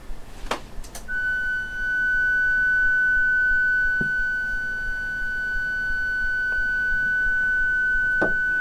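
A small loudspeaker playing a steady 1.5 kHz sine-wave test tone from a laptop's web-page signal generator, switched on about a second in after a couple of clicks. Soft knocks about four seconds in and near the end as a microphone is slid along the table.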